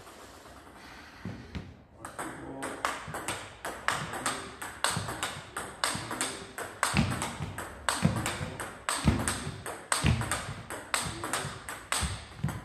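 Table tennis ball clicking off the paddles and the table in a fast forehand drive rally, about three to four sharp clicks a second, starting after a quieter first second or so. A few duller thuds come in among the clicks.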